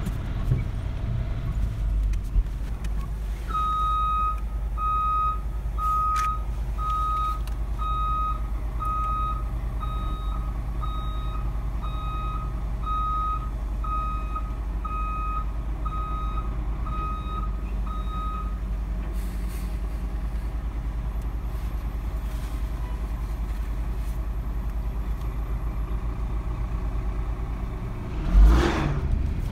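Dump truck's reversing alarm beeping about once a second for some fifteen seconds as the truck backs up, over a steady low engine rumble. A short loud rush comes near the end.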